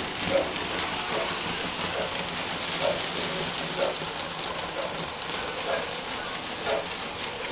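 O-gauge model trains running on three-rail track: a steady rushing rattle of wheels and motors, with a short sound repeating about once a second.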